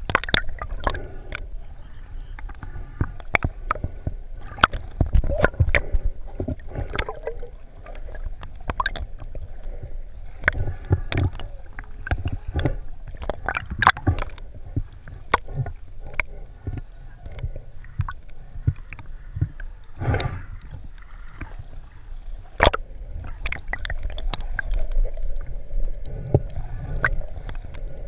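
Underwater sound heard through a GoPro's sealed waterproof housing. Muffled water movement and sloshing make a low rumble, with frequent sharp, irregular clicks and crackles.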